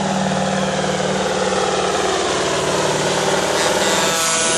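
Heavy truck's diesel engine running steadily.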